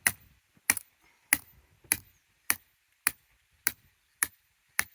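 A hammer driving a stake: nine sharp, evenly paced blows, a little under two a second.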